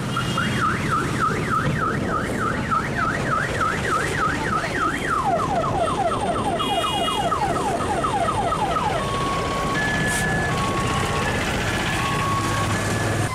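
Car alarm siren cycling through its tones: a rising-and-falling warble about three times a second, then quick falling sweeps about four times a second from about five seconds in, then a slower alternation between two steady tones near the end. Low street traffic rumble underneath.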